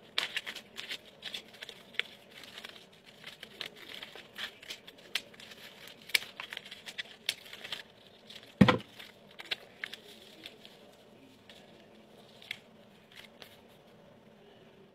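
Scissors snipping through folded paper in quick, irregular cuts, with paper rustling. A single louder thump comes a little past halfway, and after it the snipping thins out and grows fainter.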